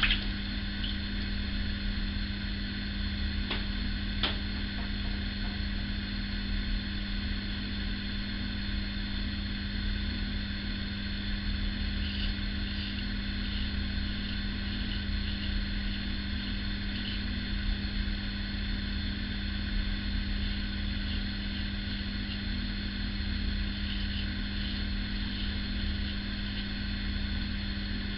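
Steady low electrical or fan-like hum, with faint short scraping strokes of a single-edge safety razor on stubble in the middle and again near the end.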